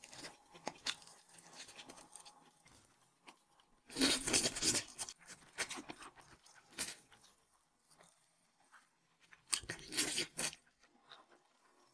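Close-up crunching and chewing of sauced, deep-fried skewer pieces bitten off the stick. Two loud crunchy bites, about four seconds in and near the end, with quiet chewing between.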